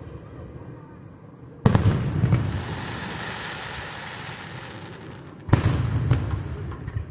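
Fireworks display: two loud booms about four seconds apart, about 1.7 and 5.5 seconds in, each rumbling away after the bang, with crackling after the first.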